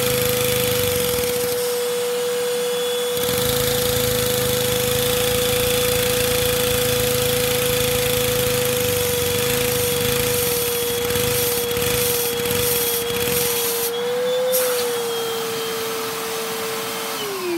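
Vacuum cleaner motor running with a steady high whine, its suction driving a Lego DOHV 4x4 piston vacuum engine. Near the end the pitch wavers and then starts to fall as the motor is switched off and winds down.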